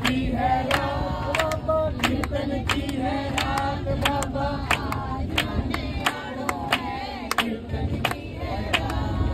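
A mixed group of men and women singing a Hindu devotional bhajan together, keeping time with steady hand claps. A low rumble runs underneath.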